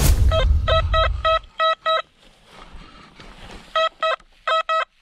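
XP Deus metal detector sounding a string of short, identical mid-pitched beeps, about three a second, as the coil passes over a buried metal target. The beeping pauses for about two seconds in the middle. A loud low rumble lasts through the first second and a half.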